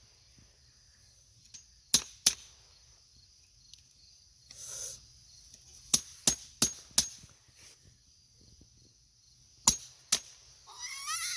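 A hammer striking a geode in sharp metallic knocks: two blows, then a quick run of five, then two more, with pauses between.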